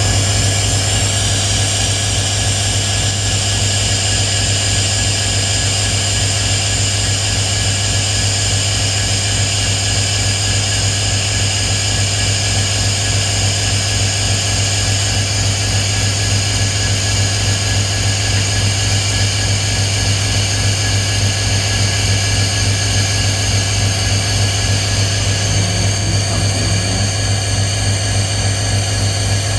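Canadian National diesel-electric freight locomotives idling: a steady low engine hum with a rapid pulse, with a high-pitched whine and hiss over it.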